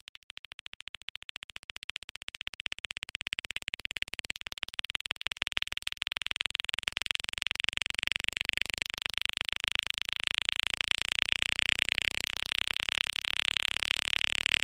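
Electronic music from a breakcore/J-core DJ mix: a very rapid stuttering pulse, mostly in the upper mids, that fades in from near silence and grows steadily louder.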